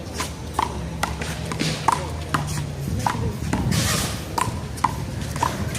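A small rubber handball being struck by hands, hitting the wall and bouncing on the court during a rally: a string of sharp pocks, about two a second, each with a short ring. A brief rushing noise rises and falls just past the middle.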